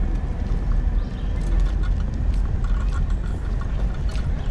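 Footsteps and stroller wheels on an asphalt path, under a steady low rumble of movement on the microphone.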